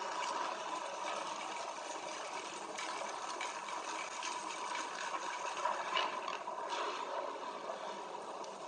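Samsung Galaxy Note9's AKG-tuned stereo speakers playing back a demo soundtrack: a continuous rushing noise with a faint steady tone and a few sharp clicks.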